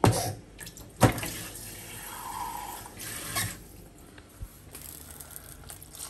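Kitchen tap running into a jug for about two and a half seconds, after two sharp knocks of the jug being handled at the sink.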